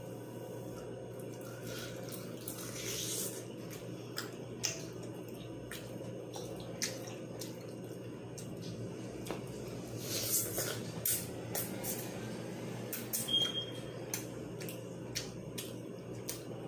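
Close-miked chewing of crispy fried chicken wings: irregular crunches and sharp mouth clicks, busiest a little past the middle, over a steady low hum.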